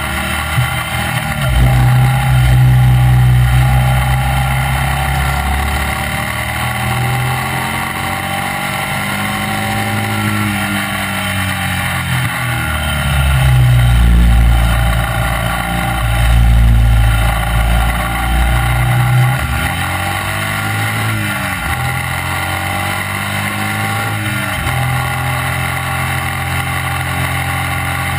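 Classic racing sidecar outfit's engine running hard at track speed, its revs dropping and climbing again several times as it is worked through gear changes and corners.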